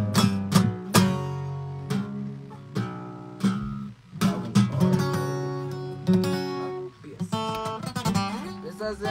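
Acoustic guitar playing without singing: quick strummed chords in the first second, then slower ringing chords, and single notes moving step by step from about seven seconds in.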